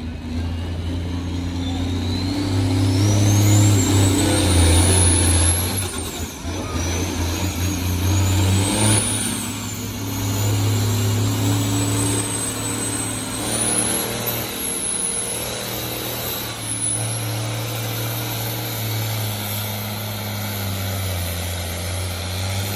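Farm tractor engine working hard under load as it pulls a weight-transfer sled, with a steady low note and a high whine that climbs over the first several seconds, dips and climbs again.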